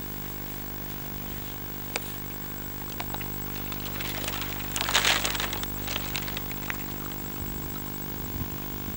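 A steady mechanical hum, with a few clicks and a brief, louder scraping noise about five seconds in.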